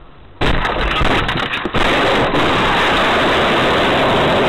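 Car collision picked up by a dashcam microphone: a sudden, very loud crash about half a second in, with sharp cracks, then a harsh, distorted noise that stays loud while the camera is knocked from its mount.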